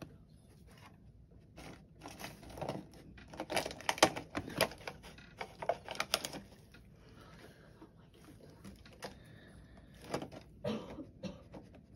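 A badger rummaging in a tipped-over bin bag: plastic rustling and crinkling in bursts of quick crackles, busiest in the middle and again near the end.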